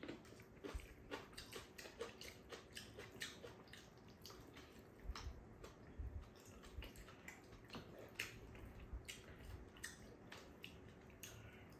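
Faint eating sounds at the table: wet chewing and mouth smacks with small clicks of chopsticks, many short sharp ticks scattered throughout as two people eat tteokbokki.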